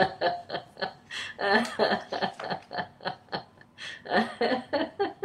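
A woman laughing in quick runs of short ha-ha pulses, several bouts with brief breaks for breath in between. It is deliberate laughter-yoga laughing.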